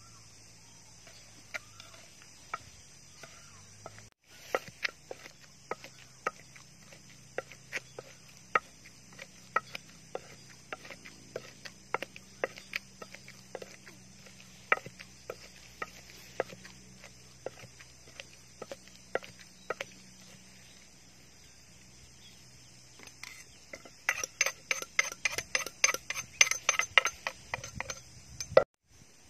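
Wooden pestle pounding a paste in a clay mortar: sharp separate knocks about twice a second, then a quicker, louder run of knocks near the end.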